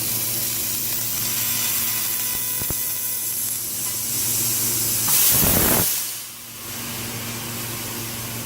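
CO2 laser CNC cutting machine running: a steady hiss of moving air over a low hum and faint steady tones. A louder rush of noise swells about five seconds in and falls away just before six seconds.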